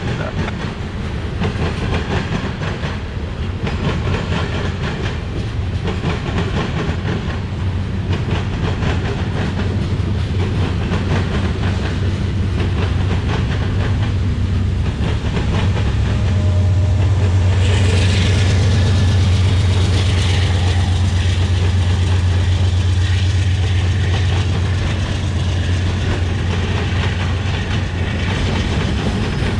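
Freight train cars, covered hoppers then autoracks, rolling past with wheels clicking steadily over the rail joints. A low rumble runs under the clicks and gets louder about halfway through.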